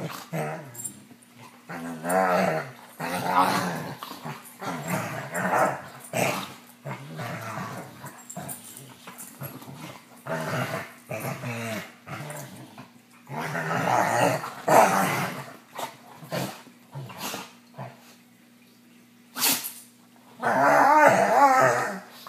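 Two dogs play-fighting, growling and snarling at each other in irregular bouts with short sharp clicks between them. A lull of about two seconds near the end gives way to the loudest bout of growling.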